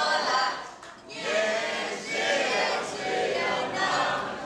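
A crowd of wedding guests calling out and cheering together in answer to a toast, many voices at once, drawn out. The voices dip briefly about a second in, then rise again.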